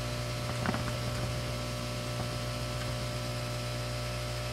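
Steady low electrical hum with a few fixed tones and a faint even hiss, and one faint tap a little under a second in.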